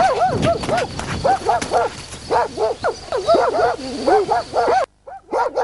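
Dog barking rapidly and repeatedly, short pitched barks several a second. The level drops suddenly near the end, and the barking goes on fainter.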